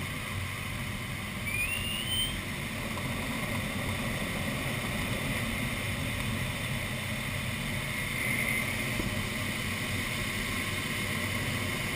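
Steady rush of air over the canopy of an ASK-21 glider in flight through an aerobatic roll, with a short rising tone about a second and a half in.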